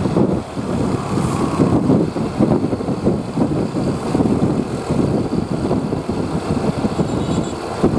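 Large bus's diesel engine running, a dense uneven rumble that rises and falls throughout.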